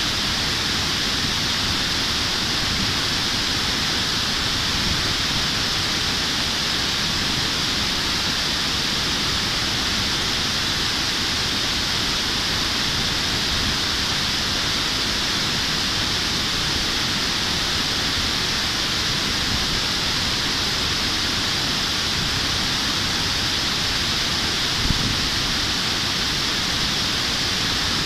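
Steady rushing of a mountain river pouring over a concrete weir, an even hiss over a low rumble, with one brief knock near the end.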